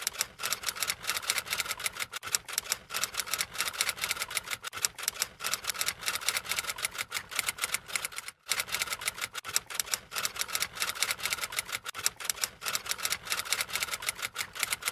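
Typewriter typing sound effect: a rapid, steady run of keystroke clicks, with a short break about eight and a half seconds in.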